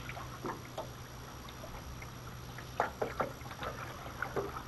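Short splashes, drips and knocks of a caught golden perch being handled and unhooked inside a landing net, the loudest cluster a little under three seconds in, over a steady low hum.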